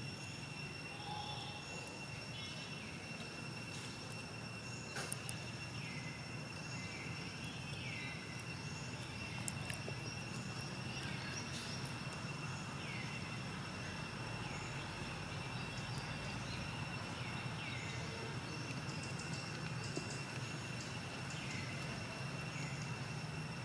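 Outdoor ambience: a steady high-pitched drone, a low rumble, and short falling chirps that recur every second or two.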